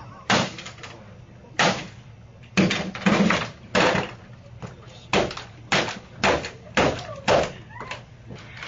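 A laptop being smashed: about a dozen hard, irregular bangs and cracks, each roughly half a second to a second apart, some followed by a short clattering rattle.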